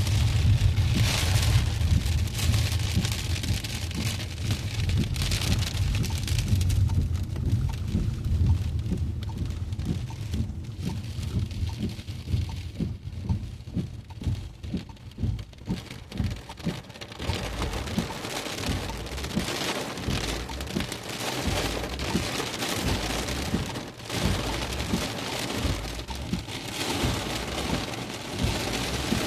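Rain pattering steadily on a car, with a low rumble that is strongest in the first several seconds and then eases.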